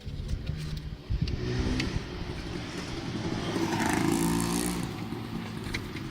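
A car engine running, growing louder toward about four seconds in and then easing off.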